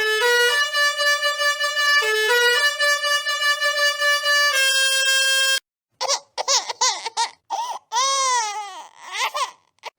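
A musical horn sound effect plays a short tune of held notes stepping up and down for about five and a half seconds. After a brief break come warbling, sliding pitched calls, with one long arching glide near the end.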